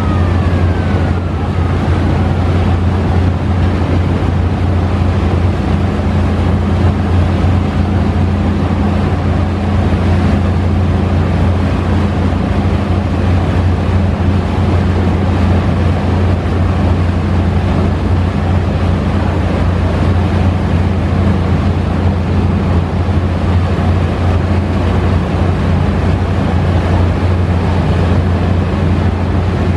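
Steady low drone of a boat's engine, heard from on board while under way, mixed with rushing water from the hull and wind on the microphone.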